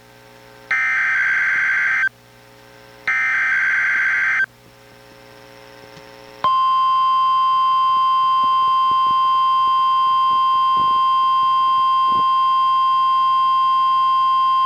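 NOAA Weather Radio SAME digital header bursts, heard through a weather radio: two buzzy data bursts about a second and a half long, a second apart. They carry the coded alert, here a Required Weekly Test. About six and a half seconds in, the 1050 Hz warning alarm tone starts, one steady high tone held on.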